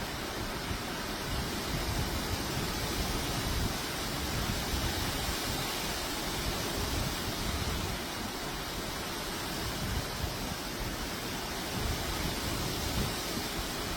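Steady rushing noise with an irregular, gusty low rumble, like wind buffeting the microphone.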